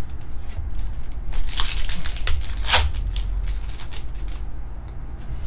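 Thin plastic card sleeve rustling and crinkling as trading cards are slid into it and handled. There is a quick cluster of sharp crinkles around the middle, the loudest near the end of that cluster.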